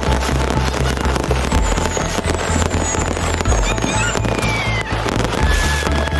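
Fireworks display with dense, rapid crackling and bangs and a few short falling whistles, over music with a shifting bass line.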